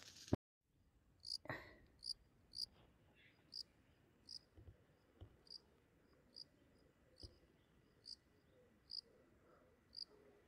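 Insect chirping faintly: short, high chirps, one every half second to a second. A sharp click comes right at the start.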